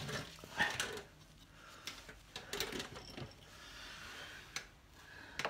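Faint scattered clicks and light knocks of handling noise, with no running machinery.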